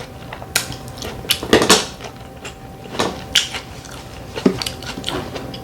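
Mussel shells and tableware clicking and clattering in scattered sharp knocks as cooked mussels are handled and pried open, with a louder cluster about one and a half seconds in.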